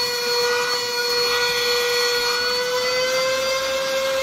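Vacuum cleaner running with a steady high whine, its pitch rising slightly about three seconds in, as it is used to groom a dog's coat.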